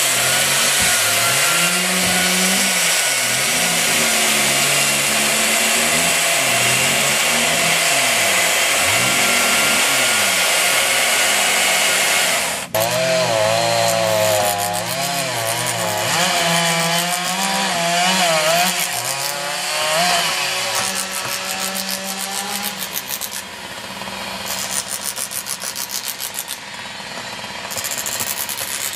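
Chainsaws working wood, the two-stroke engine pitch rising and falling as the cut takes load and the throttle is eased. The sound changes abruptly a little under halfway through, and a faster rhythmic rasp follows near the end.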